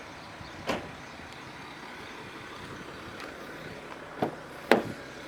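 Three sharp clunks from parts of a car being handled, one about a second in and two close together near the end, the last the loudest, over steady background noise.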